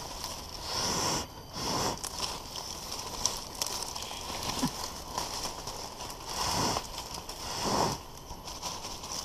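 Leaves and twigs rustling and crackling as bushes are pushed aside by hand, in several louder swells, over a steady high hiss.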